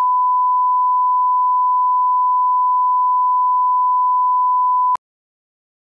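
Steady reference test tone of the kind that runs with colour bars at the head of a videotape, one unbroken pitch; it cuts off sharply about five seconds in.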